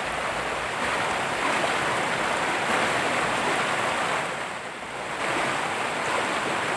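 Fast, muddy floodwater of a river rushing and churning over rocks, a steady hiss of moving water that eases briefly about four and a half seconds in.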